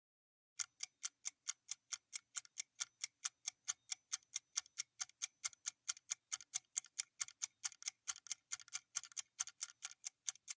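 Clock-ticking sound effect of a quiz countdown timer, a steady run of light ticks at about four a second, starting about half a second in: the answer time running out.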